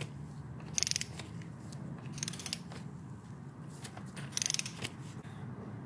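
Ratcheting torque wrench clicking in three short bursts as its pawl ratchets back between tightening strokes on an oil filter.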